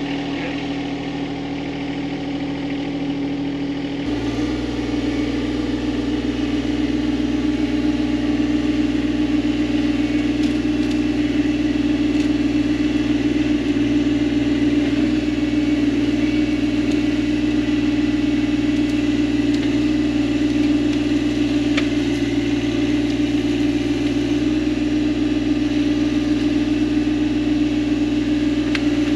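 John Deere 1025R subcompact tractor's three-cylinder diesel engine running steadily while the loader and grapple lift brush. It gets a little louder about four seconds in.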